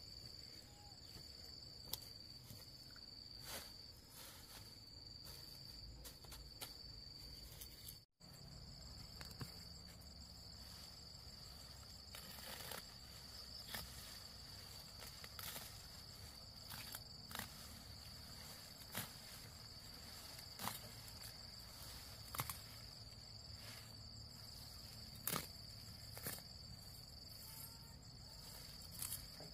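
Insects, crickets, trilling in a steady high-pitched drone, with scattered soft clicks and knocks. The sound drops out briefly about eight seconds in.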